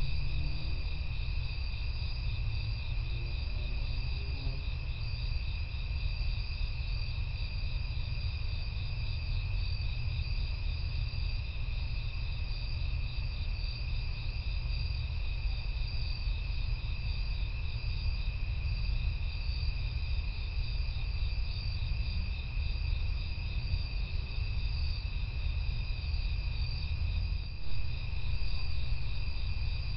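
Night chorus of crickets: several steady, pulsing high trills at different pitches, over a constant low rumble.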